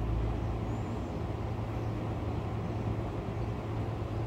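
Steady low background rumble and hum with a faint hiss over it, unchanging, with no distinct events.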